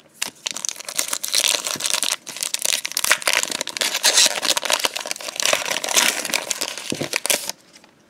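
Foil wrapper of a Pokémon Hidden Fates booster pack crinkling and crackling as it is handled and torn open. The crackling is dense and continuous, then stops suddenly about half a second before the end.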